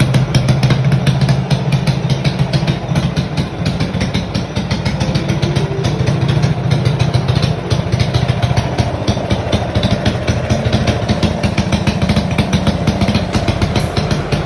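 Ported Honda GX200 single-cylinder four-stroke engine running steadily on a test run, with a rapid, even firing beat.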